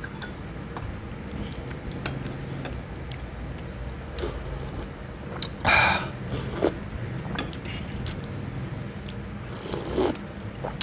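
Broth slurped from a spoon, twice: a short loud slurp about six seconds in and a softer one near the end, with small clicks of chewing and of the spoon in between.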